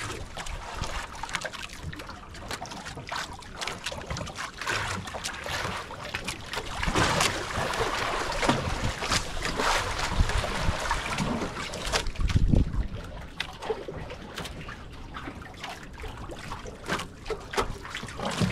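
Water splashing and trickling, with many small knocks throughout and a heavier thump about twelve seconds in.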